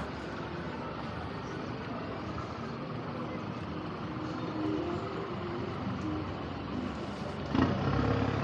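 City street traffic: cars and buses running along the road as a steady hum, with a louder low rumble near the end.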